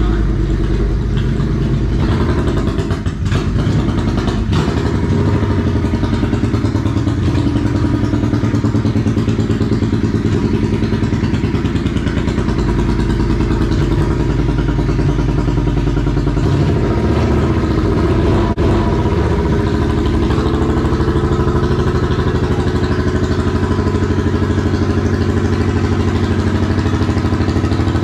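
2002 Yamaha Royal Star Venture's V4 engine running at a steady idle on choke just after a cold start. The engine speed wavers about two-thirds of the way through, then settles.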